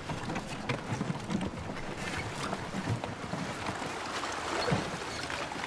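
Wooden handcarts rolling and rattling over wet stone paving, with many hurried footsteps and irregular wooden knocks.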